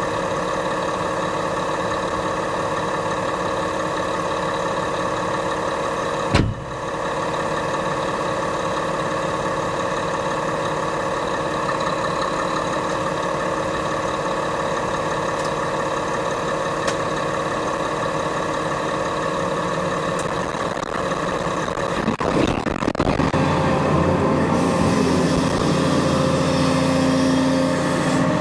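Caterpillar 335 excavator's diesel engine running steadily, with one sharp knock about six seconds in. A little after twenty seconds the engine note shifts and it runs louder.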